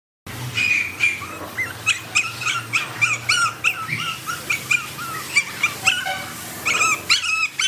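A puppy whining and yipping in a rapid string of short, high-pitched cries, two or three a second, louder near the end.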